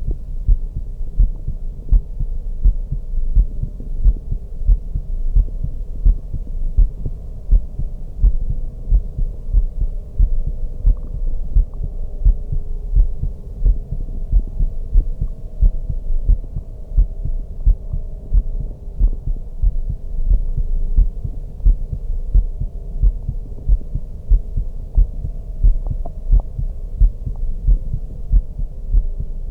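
A woman's heartbeat heard through a stethoscope: a steady, regular run of deep, low thumps.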